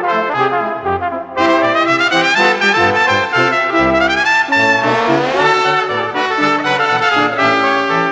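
Brass music playing held chords that change every second or so, with a rising glide about halfway through.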